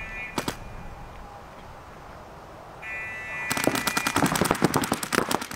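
A short electronic start tone, then a longer one about three seconds in, signalling the start of the point; as it ends, several paintball markers open up in rapid fire, many shots a second, off the break.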